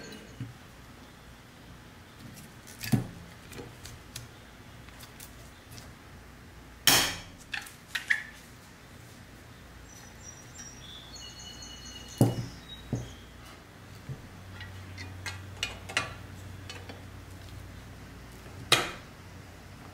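Powder-coated pressed-steel toy-truck parts handled and set against one another: scattered metallic clinks and knocks, about eight sharp ones, with quiet gaps between.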